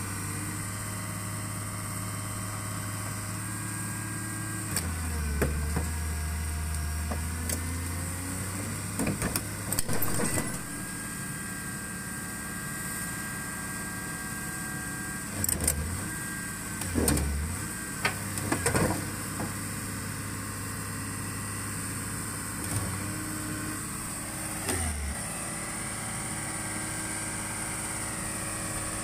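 Hitachi hydraulic excavator's diesel engine running steadily, its pitch dropping several times as the hydraulics take load, with loud knocks and metal clanks in between.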